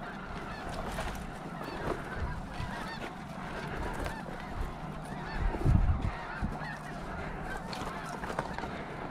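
A large flock of snow geese calling nonstop, many overlapping honks blending into a continuous din. A brief low rumble stands out a little over halfway through.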